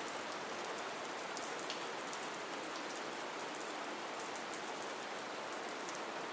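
Soft, steady rain falling, an even hiss with the fine patter of individual drops.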